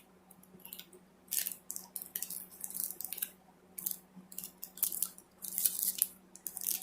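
Trading-card pack wrapper and cards being handled, with crinkling and rustling in short irregular bursts. A faint steady hum runs underneath.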